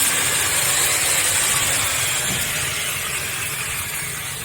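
Woodworking machinery in a carpentry shop running with a loud, steady hiss that slowly gets quieter.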